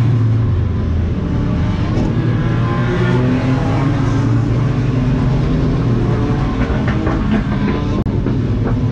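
Mercedes-AMG CLA45 race car's turbocharged four-cylinder engine heard from inside the car, running hard with its pitch rising and falling as the revs change. A few sharp clicks come near the end.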